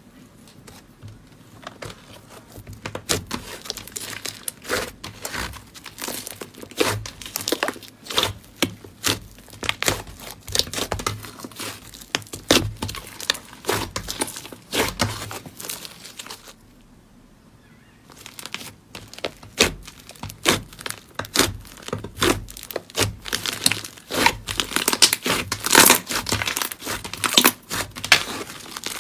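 Hands squeezing, stretching and pulling apart thick slime: a dense run of crackles, pops and soft tearing sounds, with a brief lull a little past halfway.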